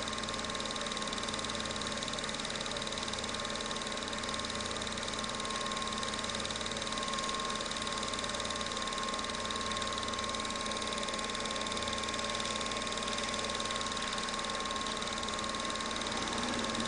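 Film projector running: a steady mechanical whir with a constant high-pitched tone and a low pulsing hum from the motor and film transport.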